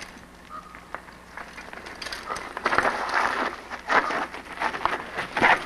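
Mountain bike rolling down a rocky, rooty trail: tyres crunching over stones and the bike rattling in a dense run of clicks and knocks. It grows louder from about two seconds in as the bike comes close.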